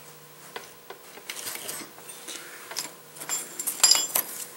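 Metal parts clicking and scraping as the pinion yoke is slid by hand onto the pinion shaft splines of a Dodge Ram 1500 rear differential. Near the end there is a quick cluster of sharper, ringing metallic clinks.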